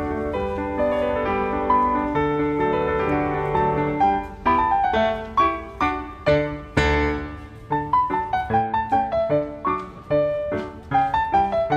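Background piano music: slow held chords at first, then from about four seconds in a run of separate notes, each struck and fading.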